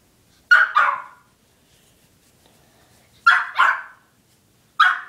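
Dog barking: five short, sharp barks, a quick pair about half a second in, another pair a little after three seconds, and a single bark near the end.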